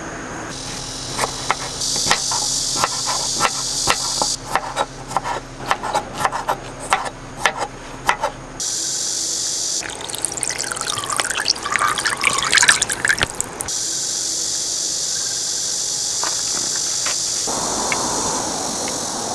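Soft pieces of acorn jelly dropped into a bowl, a run of quick taps and clicks; then, about ten seconds in, cold broth poured over the jelly and cucumber for a few seconds, splashing and filling. Near the end chopsticks stir in the broth.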